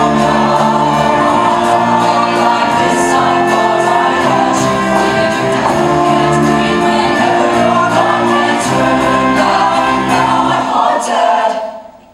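Mixed-voice show choir singing over its accompaniment in the full final bars of a number, which cut off sharply near the end.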